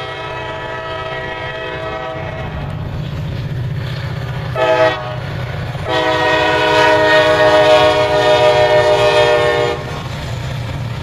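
Wheeling & Lake Erie freight diesel locomotives sounding their multi-note air horn: a long blast, a short toot, then a long blast of about four seconds, the pattern sounded for a road crossing. Under the horn is a steady low rumble from the locomotive engines and rolling train.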